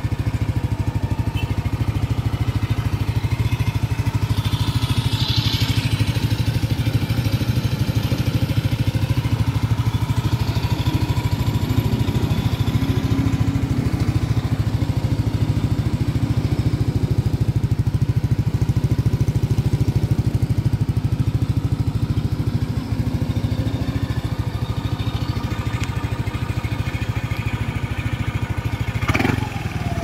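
Yamaha NMAX 155's single-cylinder four-stroke engine idling steadily through an MT8 Racing aftermarket exhaust, a constant even hum with no revving.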